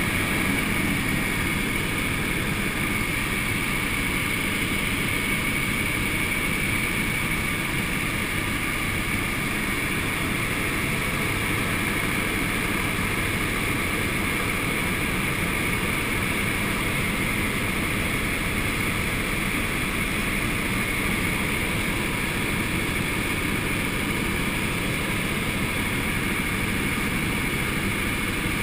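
Helicopter in steady cruise flight, heard from inside the cockpit: continuous rotor and engine noise with a steady high whine, unchanging throughout.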